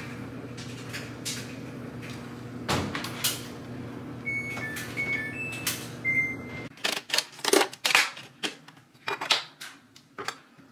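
Washing machine control panel beeping, a run of short electronic beeps at a few different pitches as its buttons are pressed, over a steady low hum with an occasional knock. Then come sharp clicks and knocks of a kitchen cupboard being opened and items inside handled, louder than the beeps.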